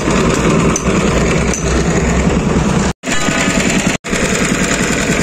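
Small engine of a sugarcane juice crusher running steadily with a fast, rapid chugging. The sound breaks off for an instant twice, about three and four seconds in.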